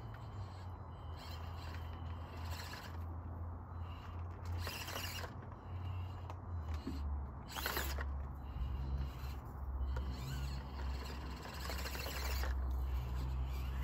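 Axial SCX24 micro RC crawler's small electric motor and gears whirring as it crawls over scrap pallet wood, the drone dropping in pitch about halfway through. Two short scraping bursts, near the middle and a little after, as the tyres and chassis grind on the wood.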